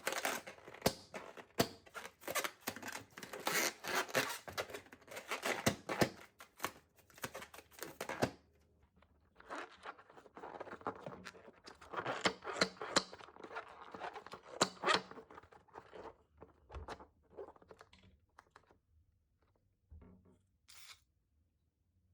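Crackling, tearing sounds of a slime-filled rubber balloon being cut with scissors and the slime worked out of it. They come in two long runs of dense crackles with a short pause between, then thin out to a few scattered ones near the end.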